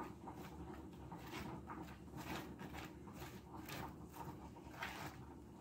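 Faint handling noises, soft irregular rustles and light scrapes a few times a second, over a low steady room hum.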